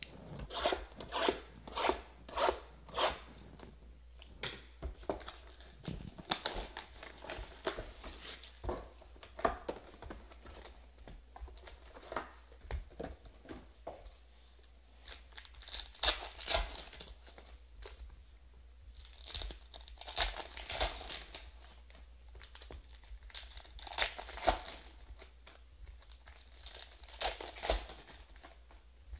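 Foil trading-card packs being torn open by hand: repeated short, sharp rips and crinkling of the wrappers, with rustling handling between the clusters of tears.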